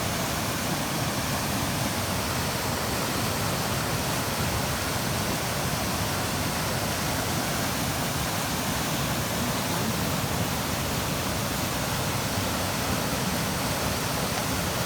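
Steady rushing of water pouring over a creek waterfall, an even unbroken noise with no pauses.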